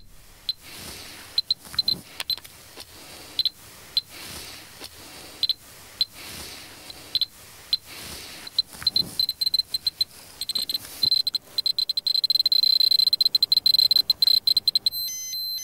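Handheld СТОРА-ТУ radiation dosimeter chirping at each count, at first in scattered single clicks. About ten seconds in, the counts speed up sharply into a near-continuous chatter as the meter is held down by the grass, a sign of higher radiation there. Near the end it gives a repeating on-off beep.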